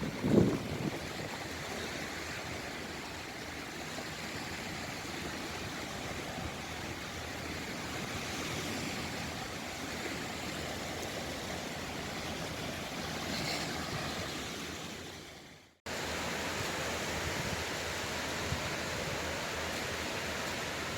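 Sea waves washing ashore: a steady rushing noise with a brief knock just after the start. About three-quarters of the way through it fades out to silence, and the wave noise cuts back in a moment later.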